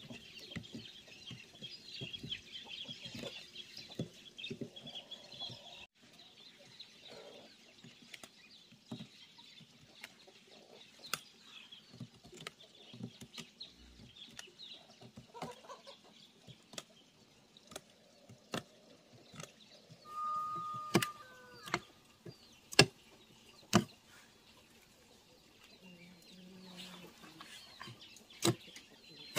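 A machete knocking and scraping against a knobby wooden stump burl in scattered sharp strikes. The strikes are loudest about two-thirds of the way through. A hen clucks briefly just before them.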